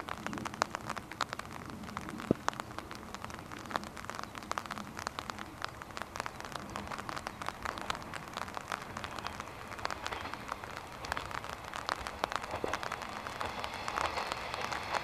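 Rain falling, with many separate drops striking a nearby surface. Toward the end a train is faintly heard approaching, the sound slowly growing louder.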